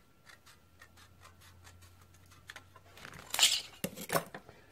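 Scissors snipping through thin brass shim stock in quick small cuts, about four a second. About three seconds in come a louder rustle of the brass sheet being handled and two sharp metallic clicks.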